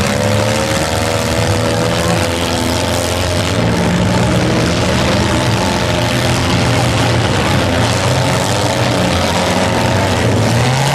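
Engines of several demolition derby cars running and revving together, a steady loud din with wavering engine pitches.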